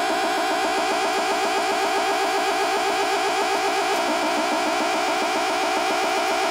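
Neon-bulb relaxation oscillator sounding as an electronic synth tone, buzzy with a fast rippling pulse; its tone shifts about four seconds in.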